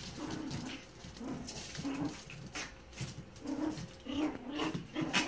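Yorkshire terrier puppies making short whimpering yips again and again as they play-fight, with a sharper, louder one near the end.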